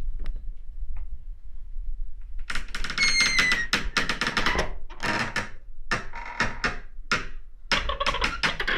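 Creaking door sound effect over a low rumble. From about two and a half seconds in comes a long run of irregular rattling creaks and knocks, with a high hinge squeal just after they begin.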